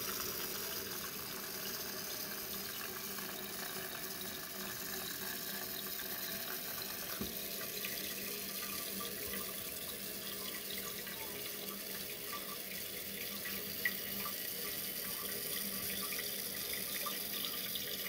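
Dual-flush toilet cistern refilling after a half flush: a steady hiss of water running in through the fill valve.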